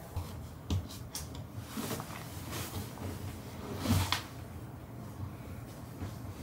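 A cat purring with a rough, pulsing rumble, with a few breathy hisses through it, the loudest about four seconds in. The cat has asthma.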